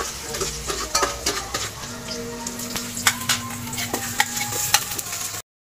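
Cooking pot sizzling on the stove as sliced tomatoes are tipped in and stirred, with a metal ladle clinking against the pot and plate. The sound cuts off suddenly near the end.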